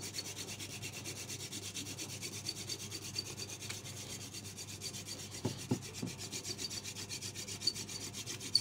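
Hand-drill friction fire: a long wooden spindle spun rapidly back and forth between the palms, its tip grinding in the notch of a small wooden fire board. It makes a fast, even rhythmic rubbing as the friction builds heat and dust, with a few short squeaks a little past halfway.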